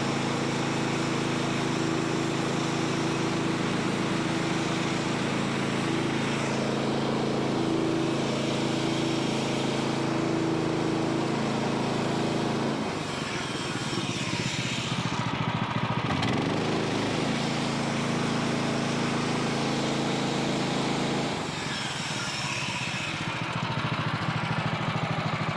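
Gas engine of a Woodland Mills portable bandsaw mill running steadily as the band blade cuts along a red oak log. The engine note shifts about halfway through.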